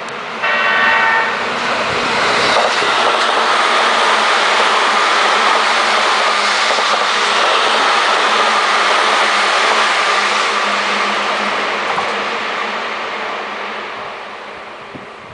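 Seibu Railway electric train giving a short horn blast, then passing through the station at speed: a long, steady roar of wheels on rail that fades away near the end.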